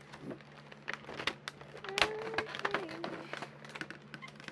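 Clear plastic bag of miniature toy food pieces crinkling as it is handled and opened, with irregular crackles and small plastic clicks. A short hum sounds about halfway through.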